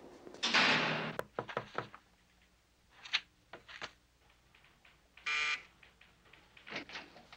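Barred steel prison gate clanging shut, the loudest sound, followed by scattered clicks and paper rustles from handling files at a steel filing cabinet. A short buzz comes about five seconds in.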